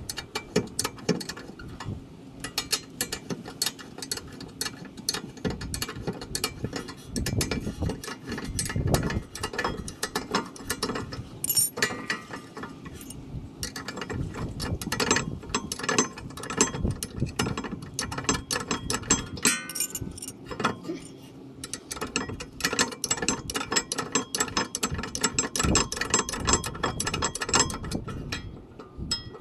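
A 14 mm ratcheting wrench clicking rapidly in long runs as it loosens a rear brake caliper mounting-bracket bolt, with a couple of short pauses.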